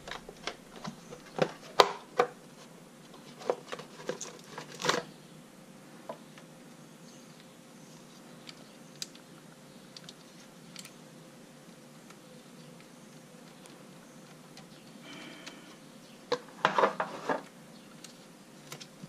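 Scattered light clicks and knocks of small parts being handled: the fuel pump fuse being fitted into the fuse box. They come in a busy run through the first five seconds and again in a short cluster a little past the middle.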